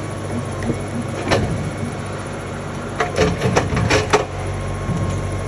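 A material-handling machine's engine runs steadily. Sharp knocks or clanks sound once about a second in and several times between three and four seconds in.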